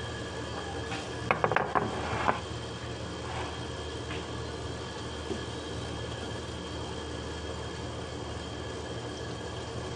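A quick cluster of knocks and clinks from kitchenware being handled on the counter, a glass baking dish and a frying pan, about a second in. A steady electrical hum runs underneath.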